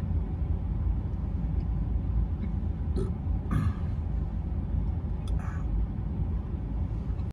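A man chewing a hamburger, with a few short throat and mouth noises about three seconds in and again near five and a half seconds, over a steady low rumble inside a car's cabin.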